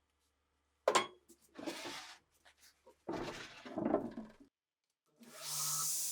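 Workshop handwork on a rusty rifle: a sharp knock, then two stretches of scraping and rubbing with a few small clicks between them. Near the end a steady hiss with a low hum starts up.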